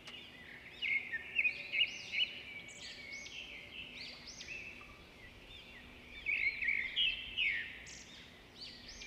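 Small birds chirping and twittering in many quick, arching high notes, in two busier spells about a second in and again about six seconds in, over a faint steady hum.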